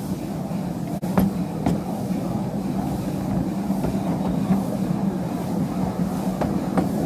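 Miniature railway carriages rolling slowly behind a steam locomotive, their wheels clicking over the rail joints in pairs every couple of seconds, over a steady low hum and rumble.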